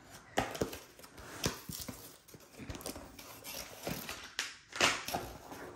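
Cardboard kit box being handled and opened on a wooden table: irregular taps, scrapes and rustles as the end flap is pulled open, with one louder knock near the end.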